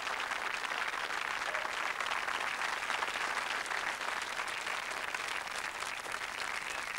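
Studio audience applauding steadily: dense clapping from many hands.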